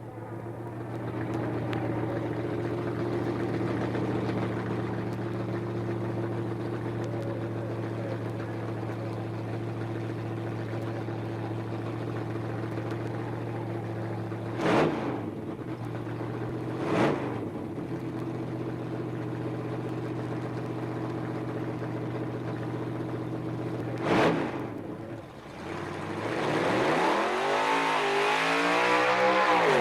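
Drag-racing street roadster's engine idling steadily at the starting line, with three sharp throttle blips. Near the end it launches, its pitch and loudness rising as it accelerates hard.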